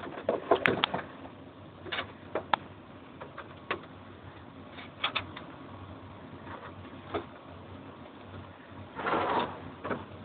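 Irregular light clicks and taps, singly or a few at a time, with a short rustling noise about nine seconds in.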